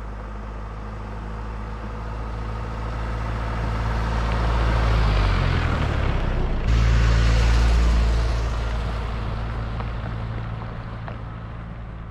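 Off-road 4x4 driving along a gravel track: its engine hum and tyres on the gravel grow louder as it approaches, peak as it passes close by a little past the middle, then fade as it drives away.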